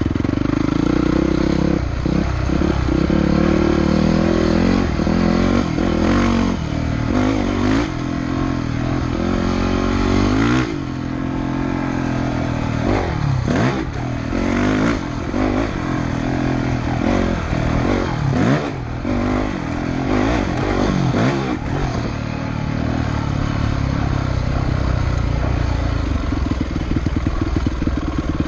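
Yamaha dirt bike engine being ridden, heard from the rider's helmet. The revs hold steady for the first few seconds, rise and fall repeatedly through the middle, and settle into a lower, steadier note near the end.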